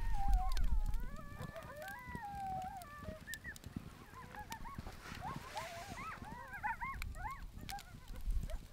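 A pack of coyotes howling together, several voices overlapping in long wavering howls, then breaking into a quick chorus of short yips and yelps in the second half.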